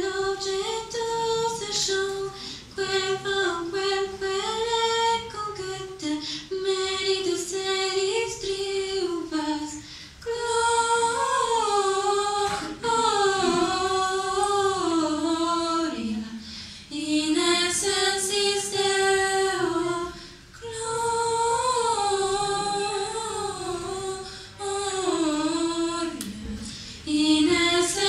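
Young female voices singing a slow Christmas carol unaccompanied into microphones, in phrases a few seconds long with short breaths between them.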